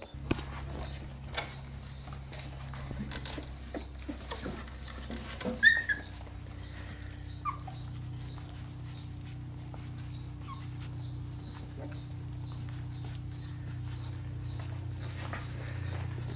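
Sheepadoodle puppies whimpering and squeaking, with one sharp, high yelp about six seconds in, over the small scratches and clicks of the litter moving about. A steady low hum runs underneath.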